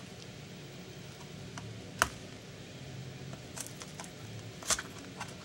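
Hands handling hockey card packs and cards: a sharp click about two seconds in, then a cluster of short clicks and rustles near the end.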